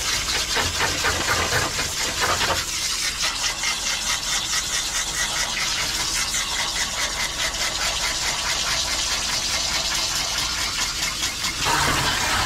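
Water spraying from a grooming-tub bathing hose into a husky's thick wet coat: a steady rushing spray with a fast pulsing to it that cuts off suddenly at the very end.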